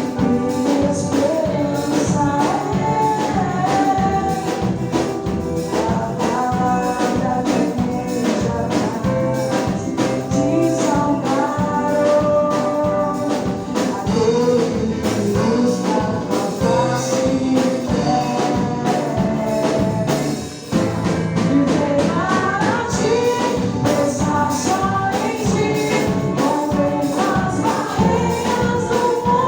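A band playing a song with a singer's voice over it, with percussion keeping a steady beat. There is a short break about two-thirds of the way through.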